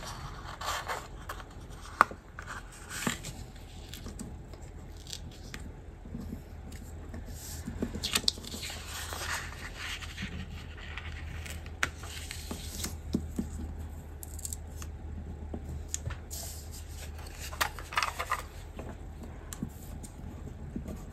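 Hands handling paper planner pages and stickers: irregular short scrapes and rustles of paper sliding on a wooden desk and sticker edges being picked at, with scattered light taps, over a faint low hum.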